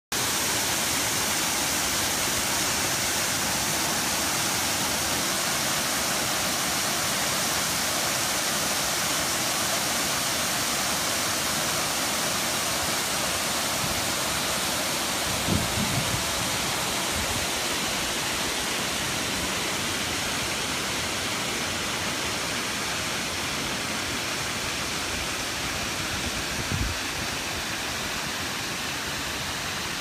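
Waterfall pouring into a rocky river pool: a steady rushing of falling water that eases slightly toward the end. Two brief low thumps break through, about halfway and near the end.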